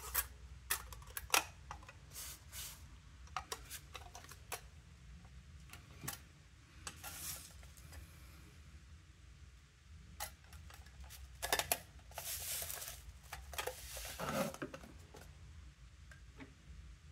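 Scattered light clicks, taps and knocks of an aluminium electronics enclosure and its small parts being handled on a bench. There is a longer scraping, rustling passage a little past the middle.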